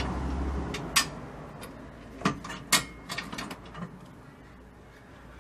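Sharp metallic clicks and knocks from hand work on a coil-spring suspension, one about a second in and a quick cluster between two and four seconds in. A low hum stops within the first second.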